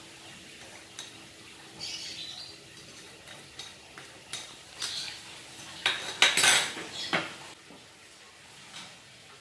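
Metal spoon tapping and clinking against a container and a frying pan, with a louder run of clanking and scraping of a utensil in the pan about six to seven seconds in.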